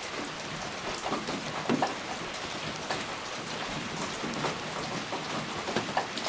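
Steady rain falling, a continuous hiss dotted with individual drops striking close by, a few of them louder than the rest.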